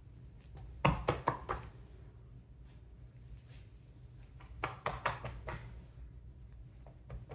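Knocks and taps on a kitchen counter while sourdough loaf dough is shaped by hand. A quick run of four or five knocks comes about a second in, and another run around five seconds in.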